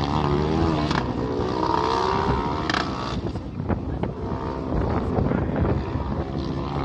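Small open-wheel race car's engine revving up and down as it drives through an autocross course of cones, its pitch rising and falling repeatedly.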